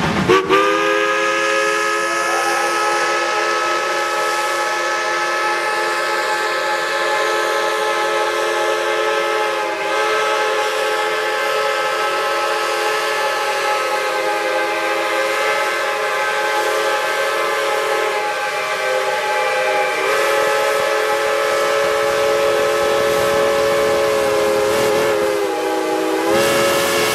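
Steam whistles on a line of geared Shay and Climax logging locomotives, blown together as one long held chord of several pitches over steam hiss. The chord sags in pitch briefly a few times before picking up again.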